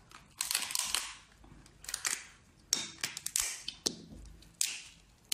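Cooked lobster shell cracking and crunching as it is bitten and pried apart by hand: a string of sharp cracks and crackling crunches at irregular intervals.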